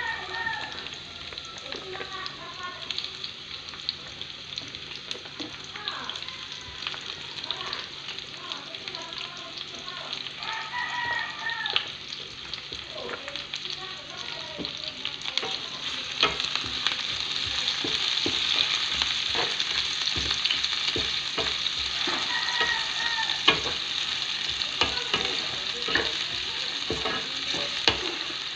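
Sliced onions and garlic sizzling in a frying pan, the sizzle growing louder about halfway through. A wooden spatula stirs and scrapes the pan, with clicks coming more often in the second half.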